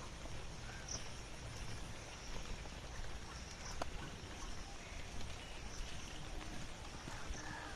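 Steady hiss of rain and running floodwater, with short high chirps from frogs or insects scattered through it.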